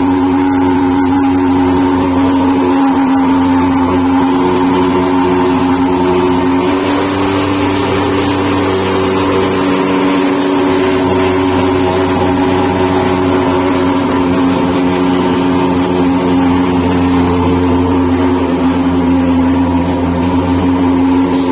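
Engine of a motorised disinfectant sprayer running steadily at constant speed, with a steady drone and hum, while the poultry shed is sprayed to kill any virus left from the last flock.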